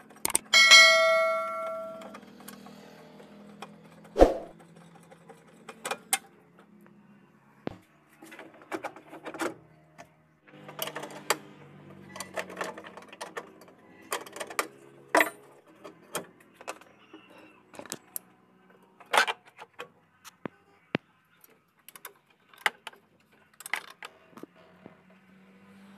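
Irregular metallic clicks, clinks and knocks of hand tools and radiator fittings being worked loose in a car's engine bay. A bright ringing chime about a second in is the loudest sound.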